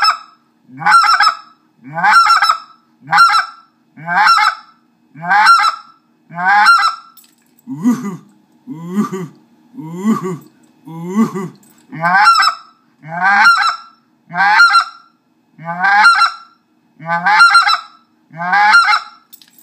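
Specklebelly goose call blown in a steady run of two-note 'to hoo-hoo' calls, about one a second, with a deep gravelly hum voiced into the call to sound like a big mature speck. The low hum comes through strongest in the middle of the run.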